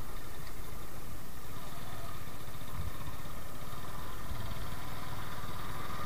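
Two-wheeler engine running steadily at low speed as the bike rolls slowly along, with a constant low rumble of road and wind noise.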